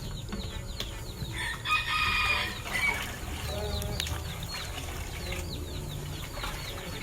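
A rooster crowing once, about two seconds in, with short bird chirps repeating all through.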